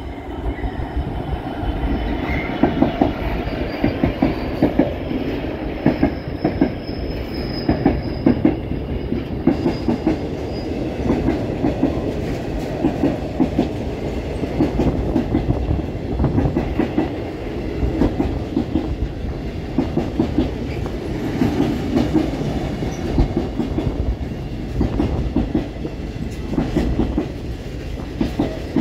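Container freight train passing close by: a long run of loaded flat wagons rolling over the rail joints with a steady, rhythmic clickety-clack. A faint high wheel squeal sounds through the first ten seconds or so.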